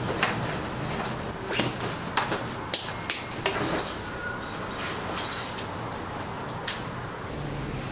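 A backpack being handled, lifted and slung onto the shoulders: fabric rustling with a string of short clicks and knocks from its straps and buckles, over a steady low hum.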